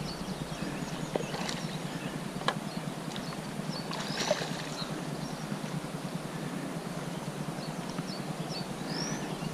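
Hooked tench splashing at the lake surface as it is played in on rod and line; the clearest splash comes about four seconds in. A few sharp clicks sound over a steady outdoor background hiss.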